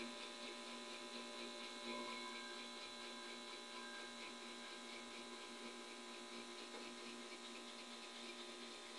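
Mini Tesla coil kit running with a quiet, steady electrical hum and a faint crackle as a screwdriver is held at the bolt on top of its coil.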